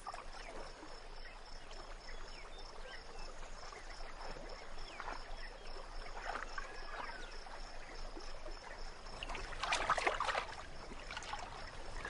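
Quiet river ambience: faint lapping and trickling water around a poled boat, getting louder for about a second near ten seconds in.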